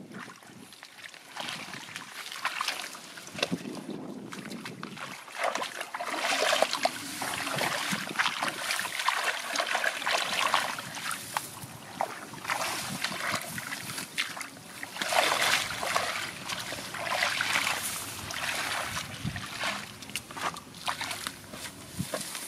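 Shallow muddy water sloshing and splashing in irregular bursts as hands grope through it and feet wade, with many small wet splatters.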